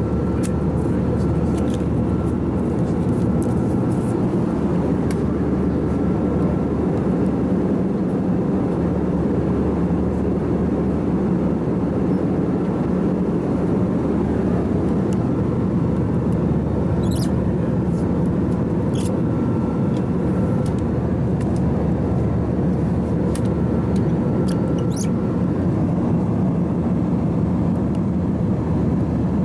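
Steady in-flight cabin noise of an Airbus A321-211, heard from inside the cabin at a window seat: an even rush of airflow and CFM56 engine noise, weighted to the low end. A few faint clicks come in the second half.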